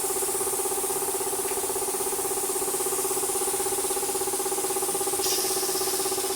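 A motor running steadily with an even, pulsing hum.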